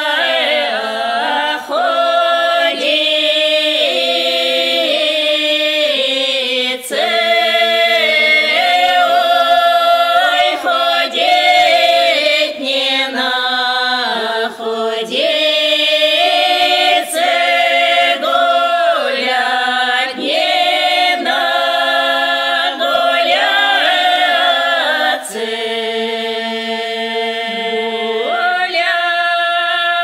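Women's voices singing a drawn-out northern Russian folk song of the Pinega tradition, unaccompanied, several voices together holding long notes that bend between pitches.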